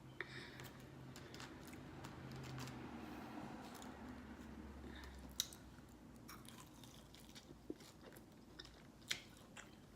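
A person chewing food close to the microphone, quiet wet chewing with a few sharp crunchy clicks in the second half.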